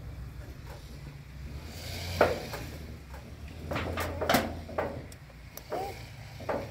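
Corrugated sheet-metal door rattling and knocking as a toddler grips and pushes on it: a sharp knock about two seconds in, then a cluster of rattles and knocks, with a few lighter ones near the end.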